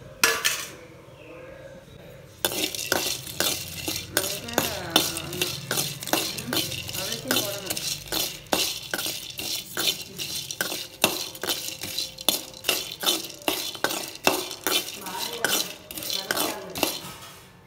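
Steel spoon stirring and scraping whole spices (cinnamon sticks, cloves and cardamom pods) as they dry-roast in a metal kadai: quick, irregular clinks and scrapes that start about two seconds in and go on until near the end.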